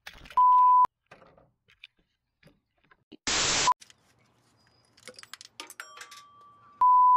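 Edited-in sound effects: a steady beep at about 1 kHz just after the start, a half-second burst of static hiss about three seconds in, and another beep near the end. Faint clicks come in between.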